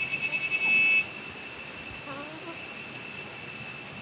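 A loud, high-pitched pulsing buzz that stops abruptly about a second in, leaving a faint steady high whine, with chickens clucking softly as they feed on lettuce.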